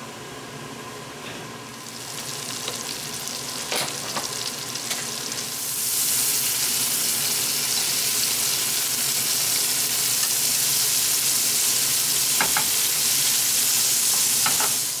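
Whole shrimp sizzling in butter in a frying pan, the sizzle growing louder about six seconds in, with a few light clicks.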